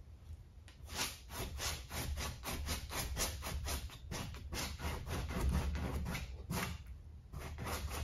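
Paintbrush strokes scrubbing back and forth on a stretched acrylic canvas, about three to four strokes a second, starting about a second in with a brief pause near the end.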